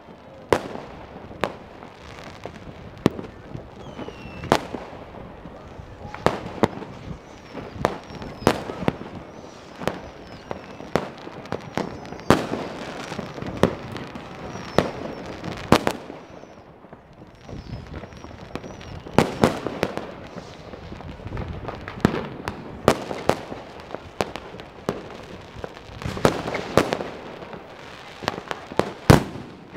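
New Year's Eve fireworks and firecrackers going off all around: a continuous run of sharp bangs at irregular intervals, often several a second, with a few short high whistles among them.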